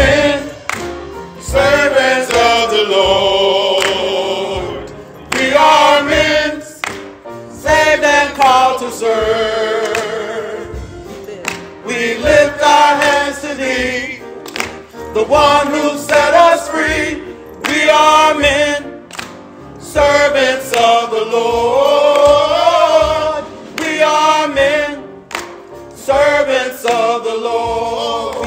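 A gospel choir singing in short phrases with brief pauses between them.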